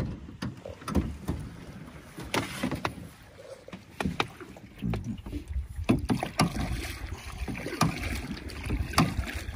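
Small boat moving through shallow water near the shore: water splashing and slapping against the hull, with irregular knocks against the boat.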